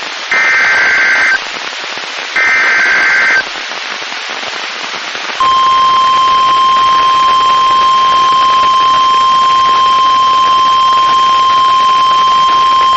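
NOAA Weather Radio Emergency Alert System activation for a severe thunderstorm warning. Two short data bursts of the SAME digital header come about a second apart, the last two of its three repeats. After a two-second pause the steady 1050 Hz warning alarm tone begins about five seconds in, all over constant radio hiss.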